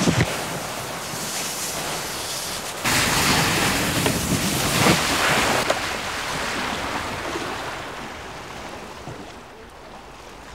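An open canoe sliding down a snow slope into an icy lake: the hull scraping over the snow, then a loud rush of water starting about three seconds in as the canoe hits the lake, fading away over the last few seconds as it glides out on the water.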